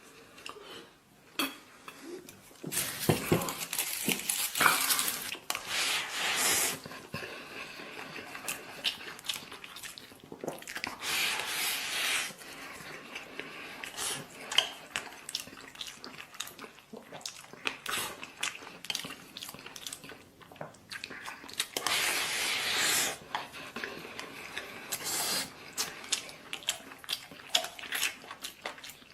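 Eating from a bowl: utensils clinking against the dish again and again, with chewing in between.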